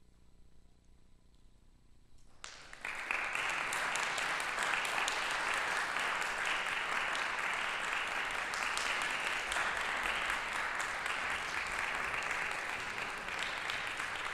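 A hush of about two seconds, then audience applause breaks out suddenly and carries on steadily.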